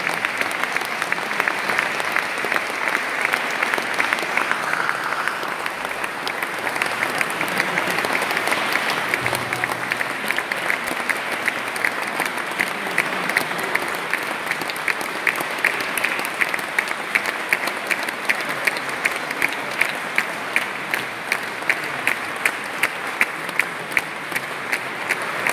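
Concert audience applauding. Part way through, the clapping falls into a steady beat, everyone clapping in unison.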